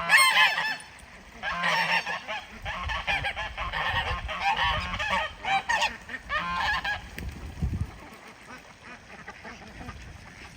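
Geese honking over and over, a loud burst of calls right at the start and then a rapid run of honks for several seconds that dies away after about seven seconds. The geese are agitated, getting mad at drakes mating with a hen.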